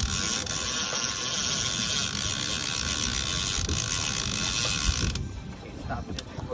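Fishing reel giving a fast, dense ratchet clicking while a hooked mahi-mahi is reeled in. It cuts off about five seconds in.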